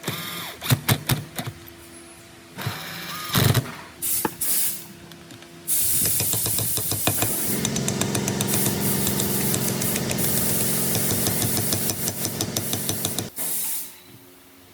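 A few seconds of metal clinks and knocks from tools and parts being handled. Then a power tool runs steadily with a rough, hissing noise for about seven seconds and stops abruptly.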